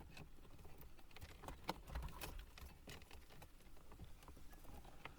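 Faint, scattered light clicks and taps of a cable and plastic dash trim being handled as a USB cable is fed behind the panel.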